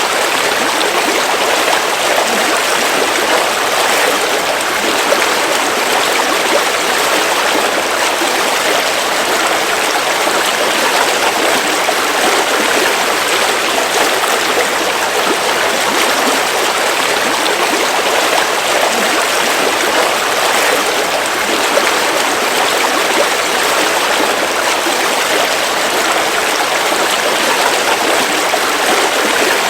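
River water flowing steadily over rocks: an even rush with a gurgle running through it.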